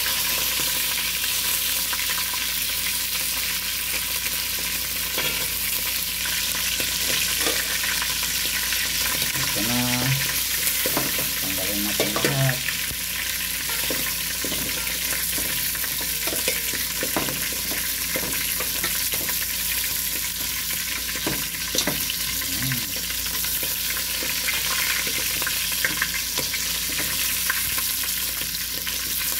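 Lamb pieces sizzling in hot oil in an aluminium pot, a steady frying hiss. A wooden spoon stirs and scrapes the meat, with occasional knocks against the pot.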